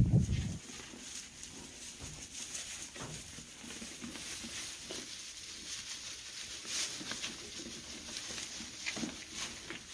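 Faint, scattered light ticks and rustling, after a short low rumble in the first half second.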